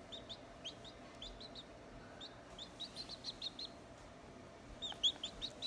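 Newly hatched chick peeping: series of short, high, falling cheeps, several a second, that pause for about a second and come back louder near the end. A single sharp knock sounds about five seconds in.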